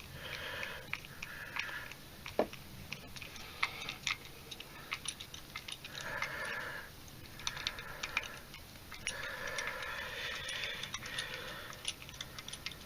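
Small screwdriver working stubborn screws out of a padlock's housing: squeaky creaking in several stretches as the screws turn, with small clicks of the bit in between.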